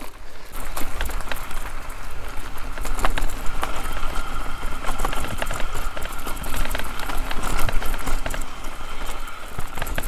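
Mountain bike ridden over a rough forest trail: the frame and components rattle and knock over roots and bumps, with tyres on dirt and wind rumble on the helmet camera microphone. A thin steady whine sounds through the middle few seconds.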